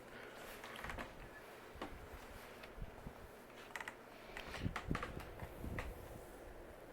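Irregular light clicks and taps, with a few louder knocks about two-thirds of the way in, over a faint steady low hum.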